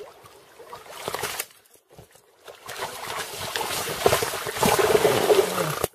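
A large hooked fish thrashing and splashing in shallow water at the shore, joined by a man wading in after it in rubber boots; the splashing grows heavier in the second half and is loudest near the end.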